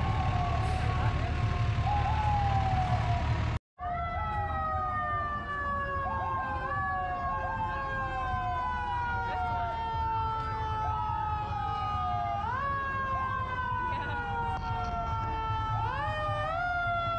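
Several emergency vehicle sirens sounding together, their overlapping tones each rising quickly and then falling slowly, over and over. The sound breaks off briefly about four seconds in and then carries on.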